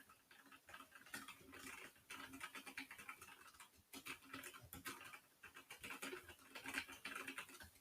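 Faint, rapid typing on a Logitech G512 keyboard with optical brown switches: a steady, irregular clatter of many keystrokes a second. The tactile switches click softly, not noisy the way blue switches are.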